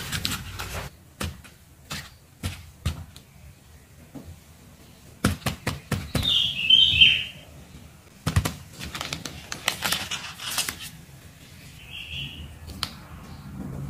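Clear plastic sticker sheets crinkling, clicking and tapping as they are handled and laid into a cardboard box. A loud, brief high chirping sound cuts in about six seconds in, and a fainter one comes near the end.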